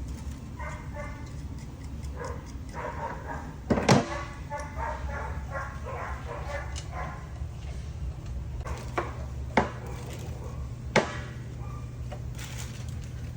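Sharp metal clinks and knocks from tools and bolts as the cover of a backflow preventer assembly is fitted and its bolts started, the loudest about four seconds in and a few more near the end, over a steady low hum. A run of short pitched calls comes in the first half.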